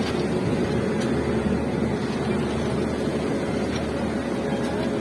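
Locomotive idling close by, a steady low rumble and hum with no change.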